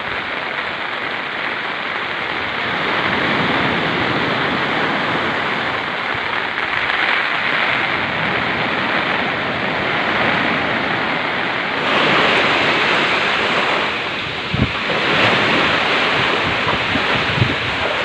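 Storm surf breaking and rushing up a beach, with strong wind buffeting the microphone. A brief low thump of wind on the microphone comes about two-thirds of the way through.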